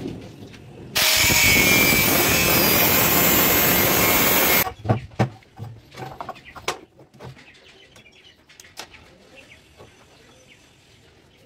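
Angle grinder cutting a steel pipe: a loud, steady hissing whine that starts abruptly about a second in and cuts off about three and a half seconds later. After it come a few light knocks and clinks as the metal parts are handled on the bench.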